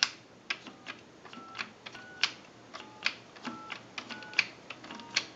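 Payphone touch-tone keypad being dialed digit by digit: each button press gives a sharp click followed by a short dual-tone DTMF beep, about eight in a row at an uneven pace of roughly one every half second to second.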